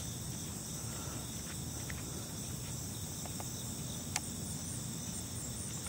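Steady high-pitched chorus of insects trilling in the grass and trees, with a faint click about four seconds in.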